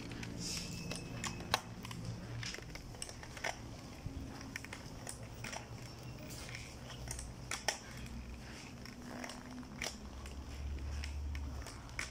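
Footsteps and light irregular clicks and taps on a hard floor, with a short low rumble about ten seconds in.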